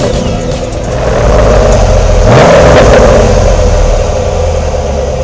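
Drivetrain of an RC crawler running as the truck drives: a steady motor-and-gear whir that gets louder and briefly rises in pitch about two seconds in, then eases off.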